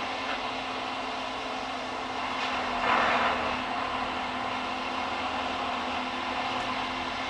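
Diesel engine of a yellow rail track-maintenance machine running with a steady drone and a constant low hum, with a brief louder noisy swell about three seconds in.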